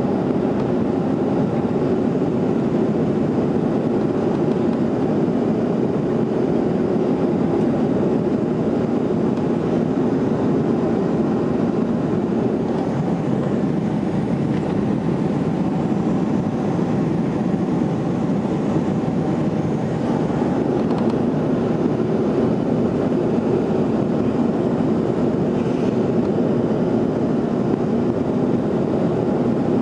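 Steady engine and airflow noise inside the cabin of a Boeing 737-200 climbing after takeoff, from its Pratt & Whitney JT8D turbofans under the wing.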